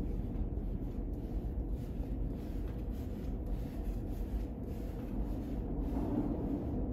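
R160 subway train running, a steady low rumble.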